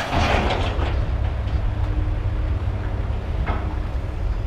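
Heavily loaded pickup truck running and rolling along, a steady low rumble with a brief rattling rush of noise at the start.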